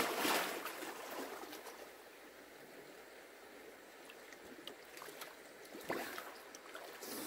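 Water splashing as two people plunge under the surface of a stream, fading within about two seconds into the low trickle of the stream. About six seconds in, a short splash as one of them comes back up.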